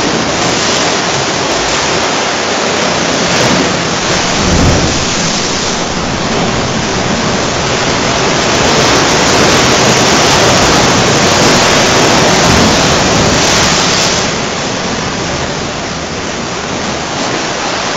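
Sea waves surging and churning through a narrow rocky sea cave: a loud, continuous rushing of water with a low boom about four and a half seconds in, swelling louder in the middle and easing off near the end.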